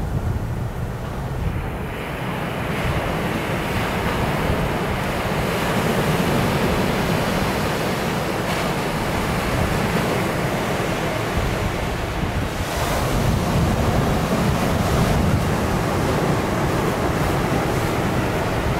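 Surf breaking and washing up on a sandy beach: a steady, swelling rush of wave noise, with wind buffeting the microphone.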